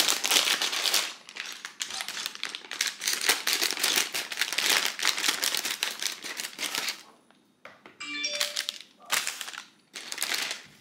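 Clear plastic parts bag crinkling as it is handled and snipped open with scissors. The crinkling runs steadily for about seven seconds, then breaks into a few short bursts near the end.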